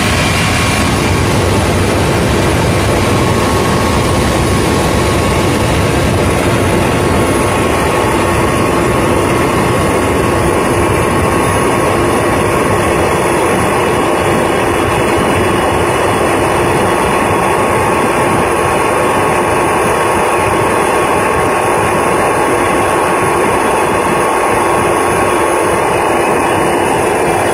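Helicopter in level flight heard from inside the cabin: the loud, steady drone of the turbine engine and rotors, with a steady high whine running through it.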